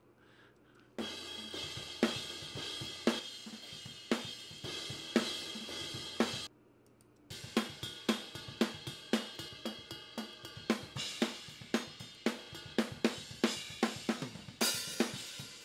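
Ungated hi-hat close-mic track from a pop punk drum recording played back solo: hi-hat strokes with snare and kick bleeding through, the bleed that still needs cleaning up. Playback starts about a second in, stops briefly about six and a half seconds in, then resumes with faster hits.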